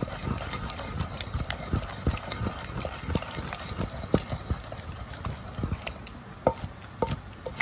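Neem-wood pestle pounding chibber chutney in a clay kunda mortar: a steady run of dull knocks about twice a second.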